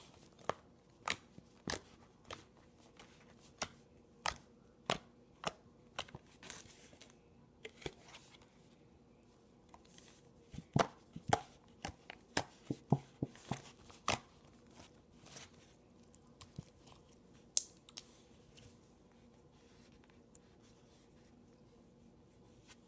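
Hands squishing and poking slime, which gives irregular sharp clicks and pops, thickest in a quick run about halfway through and thinning out near the end.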